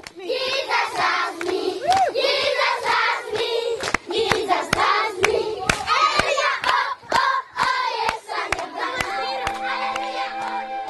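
A crowd of children singing together and clapping in rhythm, about two claps a second. About nine seconds in, background music with steady held notes fades in under them.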